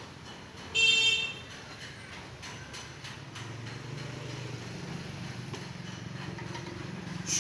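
A short, loud, horn-like beep about a second in, one steady pitch with many overtones. A low steady hum follows from about three seconds on, and a click comes at the end.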